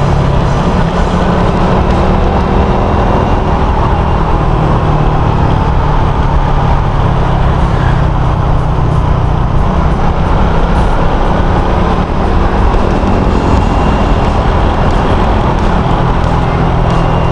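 Suzuki Raider 150 Fi's single-cylinder four-stroke engine running steadily at cruising speed, under heavy wind rush on the helmet camera's microphone.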